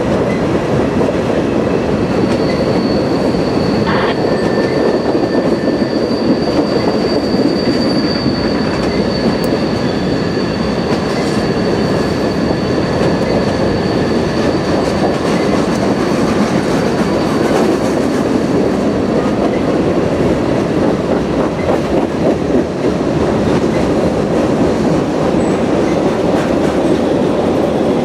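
Freight train cars rolling steadily past on the rails with a continuous rumble. A thin, high, steady wheel squeal sets in about two seconds in and fades out about two-thirds of the way through.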